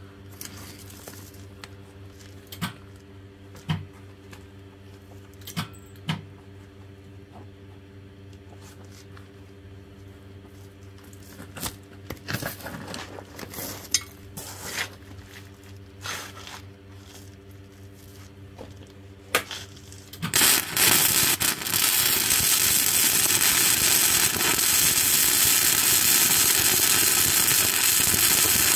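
A steady low hum with scattered clicks and knocks, then about twenty seconds in a loud, continuous crackling hiss starts and holds steady: a flux-core welding arc struck and run with Lincoln NR-211 5/64-inch self-shielded wire.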